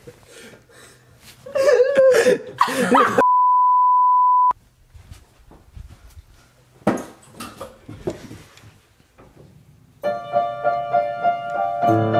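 A burst of loud voice, cut off by a steady 1 kHz censor bleep lasting just over a second; piano music starts about ten seconds in.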